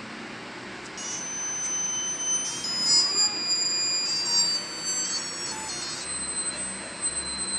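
Loud electronic beeping from a Chuwi Corebook laptop-tablet's speakers, starting about a second in: several steady high-pitched tones at once that jump to new pitches every second or so. The owner cannot explain it and hopes it is an audio driver fault rather than hardware.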